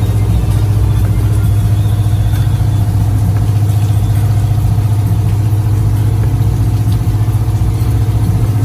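Motor boat's engine running steadily, a constant low drone.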